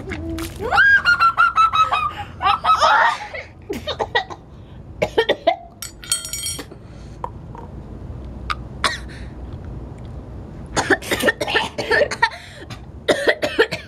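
Two people coughing, gagging and spluttering with mouths full of fizzing baking soda and vinegar, with a high-pitched squeal about a second in and a dense run of coughs near the end.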